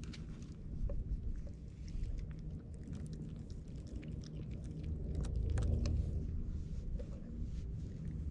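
A cat chewing dry food right at the microphone, a run of small crunching clicks, over a steady low rumble.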